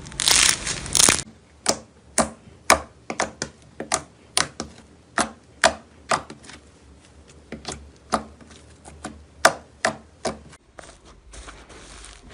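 Slime being handled: a short crunchy squish, then a run of sharp, crisp popping clicks at an irregular pace, roughly two or three a second, as it is pressed and poked.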